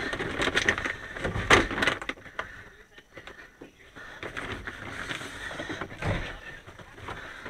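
Hands rustling, scraping and knocking against wiring bundles and hoses while feeding a cable behind a wiring harness. The noise is irregular, loudest about a second and a half in.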